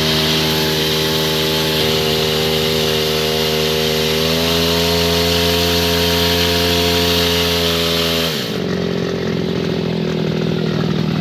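Small engine driving a spray machine's water pump, running steadily. Its pitch rises slightly about four seconds in, then drops sharply just after eight seconds and carries on at the lower speed.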